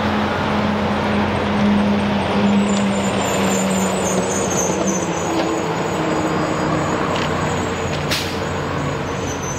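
Steady rumble of motor vehicles and road traffic, with a low engine hum that fades out about three seconds in and a single sharp click near the end.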